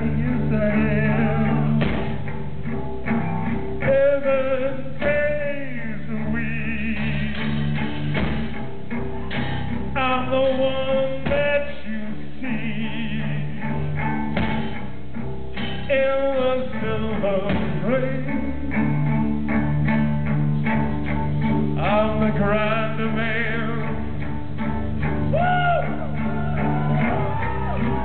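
Live blues-rock band playing: a man singing held, wavering notes over electric guitar and drums.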